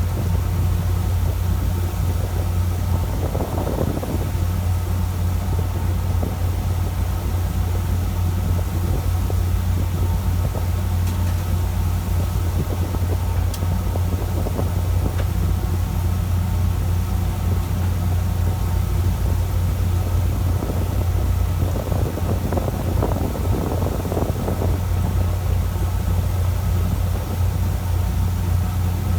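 A fishing boat's engine running steadily on board, a constant low drone with a steady rushing noise over it.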